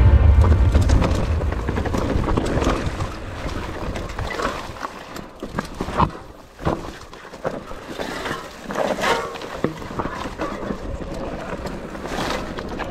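Wind buffeting a chest-mounted GoPro's microphone, heaviest at first and easing over the first couple of seconds, with scattered knocks and rattles of an electric mountain bike riding rough trail. One sharp knock stands out about six seconds in.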